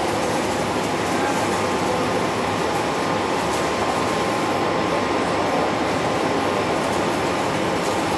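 Hydraulic power pack's pump running steadily under load, pushing a hydraulic cylinder's ram out during a pressure test, with a faint constant whine over the noise.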